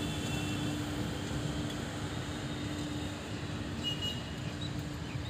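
Passenger coaches of a slow train, about 30 km/h, rolling past on the track, their wheels making a steady running noise on the rails.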